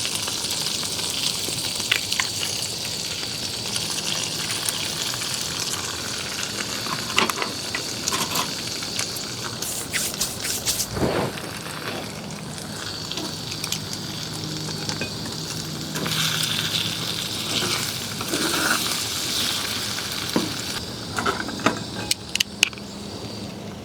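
Food sizzling as it fries in a pan on a camp stove: a steady sizzle with scattered clicks and scrapes of a cooking utensil against the pan. The sizzle dies down near the end.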